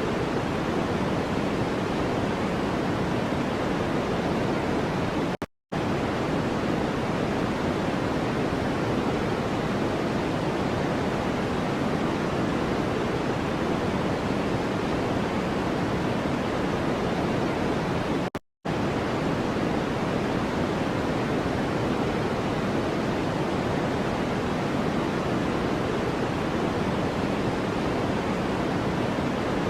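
White noise track: a steady, even rushing hiss, fuller in the lows than in the highs, that cuts out completely for a split second twice, about five seconds in and again near eighteen seconds, as if at a loop point.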